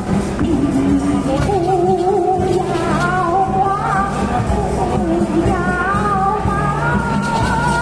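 Music with a wailing, wavering lead melody of long held notes with vibrato over a steady low backing, the kind of sound mistaken for a cat screeching.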